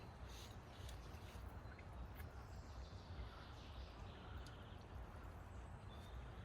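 Faint outdoor ambience: a steady low rumble with a few soft clicks.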